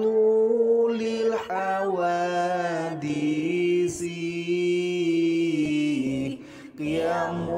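A voice chanting the Islamic attribute of Allah 'mukhalafatu lil hawaditsi' from the twenty obligatory attributes, drawing the words out in long held notes that bend slowly in pitch, with a short break near the end.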